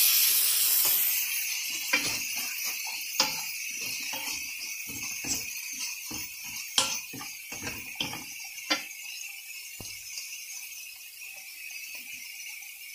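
Chopped onions sizzling in a lightly oiled nonstick wok while a wooden spatula stirs and scrapes them, knocking sharply against the pan about six times. The sizzle is loudest in the first second and eases off after.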